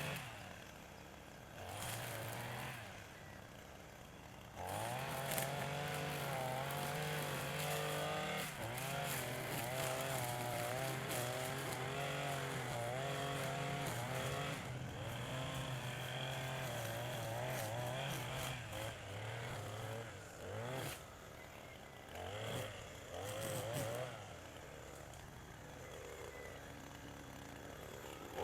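Small petrol engine of yard equipment running, throttled up in spells with wavering pitch and dropping back to a lower idle between them, longest from about five seconds in to about twenty.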